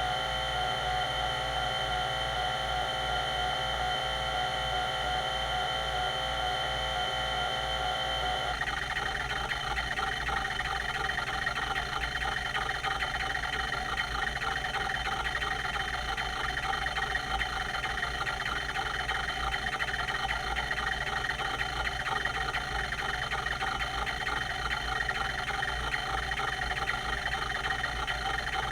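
Quantum Q540 30 MB MFM hard drive running: a steady whine of several tones from its 3600 RPM four-platter spindle. About eight seconds in, the pitch changes and a dense, rapid ticking begins and carries on, typical of the rotary voice-coil head actuator seeking.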